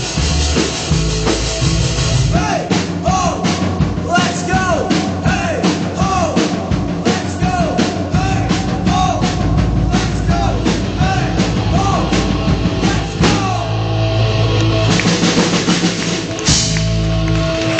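Rock music with a drum kit keeping a steady beat. Over it a melody of short notes that bend up and fall away repeats through the middle, then drops out about three-quarters of the way through, leaving drums and bass.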